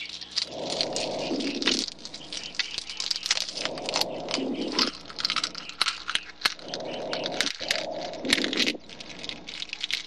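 Eggshell cracking and crinkling as it breaks open in hatching: a dense run of small sharp cracks. A lower sound about a second long comes back roughly every three seconds.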